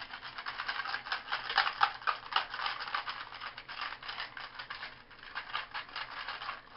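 Pennies rattling and clinking inside a capped container as it is shaken, in a rapid continuous rattle. They are being shaken in vinegar and salt to clean them.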